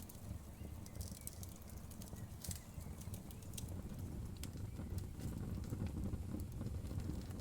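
Wood fire burning in a fireplace: a steady low rumble of the flames with scattered sharp crackles and pops of the burning wood.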